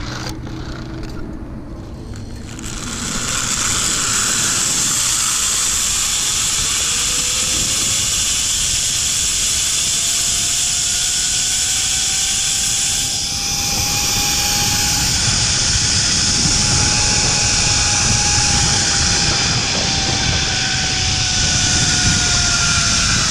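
Zip line trolley running along the steel cable: a loud, steady rushing that swells about three seconds in, with a thin whine that climbs in pitch as the rider gathers speed, holds, then sags slightly near the end.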